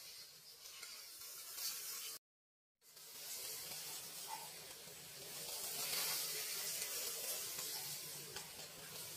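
Water spraying from a metal watering can's rose onto a bed of leafy greens: a steady hiss of droplets pattering on leaves and soil. It cuts out completely for about half a second about two seconds in, then resumes, swelling in the middle.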